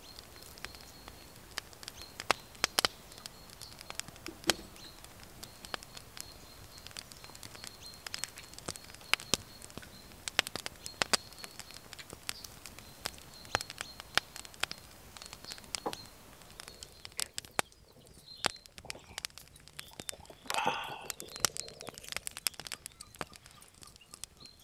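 Wood fire crackling with irregular sharp pops of varying loudness. A bird repeats a high, thin note over and over through most of the first two-thirds, and a brief louder sound comes near the end.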